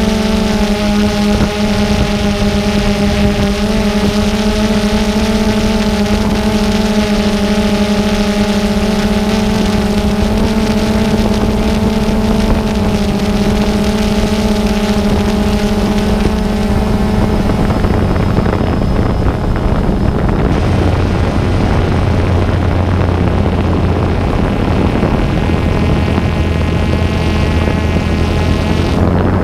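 Multirotor drone's motors and propellers humming steadily, as picked up by its onboard camera. The pitch pattern shifts about eighteen seconds in, when a lower hum and a higher whine join as the drone changes speed.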